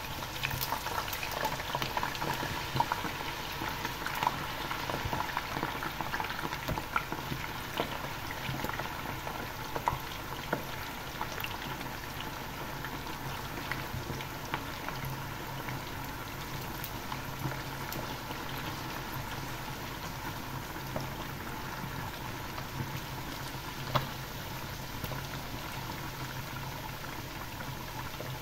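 Raw potatoes deep-frying in a saucepan of hot oil, bubbling hard with dense crackling, beside quail frying in a second pan. The crackle is busiest for the first several seconds after the potatoes go in, then settles to a steadier bubbling, with one louder pop near the end.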